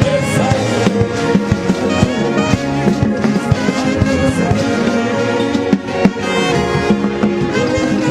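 Upbeat band music led by brass horns over a steady drum beat.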